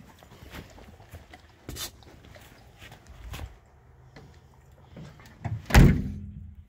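A dog lapping water from a steel bowl on a van floor, heard as faint scattered clicks, then a loud thump of the van's door near the end, followed by a short low hum.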